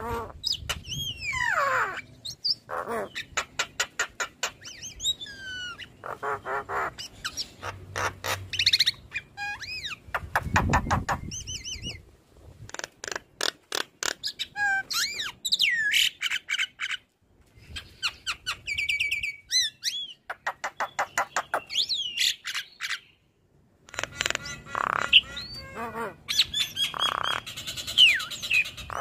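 Javan myna singing a varied chattering song: runs of rapid clicks and rattles mixed with whistled notes that glide up and down, in bursts separated by a few short pauses.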